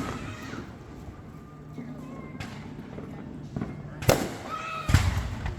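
Fireworks going off: a sharp bang about two and a half seconds in, another about four seconds in, and a deeper boom just before the end, with people's voices between the bursts.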